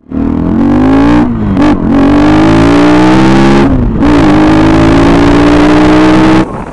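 Motorcycle engine accelerating hard, its note climbing, dipping briefly twice as the rider shifts up a gear, then climbing again; it cuts off suddenly near the end.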